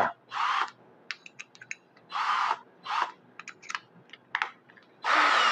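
A drill bit being fitted and tightened in the keyless chuck of a WORKPRO 20V cordless drill: a series of short ratcheting bursts, about a third of a second each, mixed with scattered sharp clicks.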